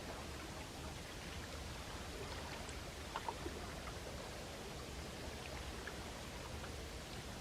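Gentle sea waves washing on the shore: a steady, even wash of water noise, with a few faint ticks about three seconds in.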